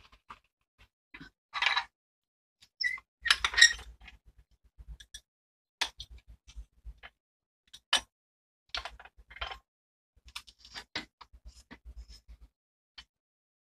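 Steel adjustable wrench being handled against a bench vise: scattered metal clinks and sharp clicks, with a couple of short scraping rasps in the first few seconds.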